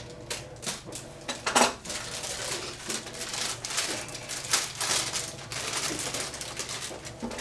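Plastic packaging crinkling and rustling as a model airplane part is unwrapped by hand, with light knocks and clicks from handling. The sharpest knock comes about a second and a half in.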